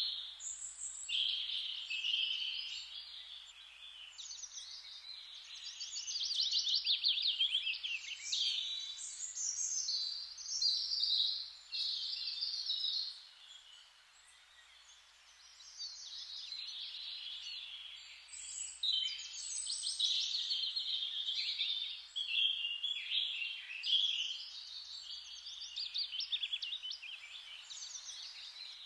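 Songbirds singing in rapid trills and warbled phrases, overlapping almost without pause, with a brief quieter lull about halfway through.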